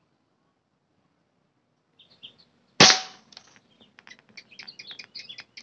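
A single air-rifle shot, one sharp crack nearly three seconds in that dies away quickly. Small birds chirp a little before it and then chirp many times after it.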